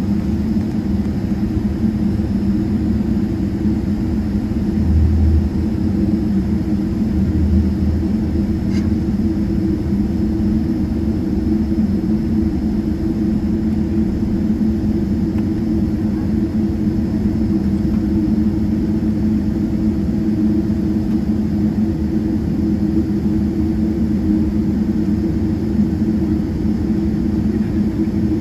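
Cabin noise of a Boeing 777-300ER taxiing: its GE90 engines at low taxi thrust make a steady drone with no spool-up. There are a couple of low thumps about five and seven seconds in.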